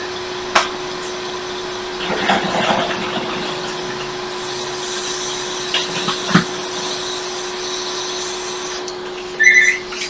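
Hot-air rework station blowing steadily with a low hum while an HDMI port is desoldered from a circuit board. A couple of small clicks come in it, and a short high beep sounds near the end.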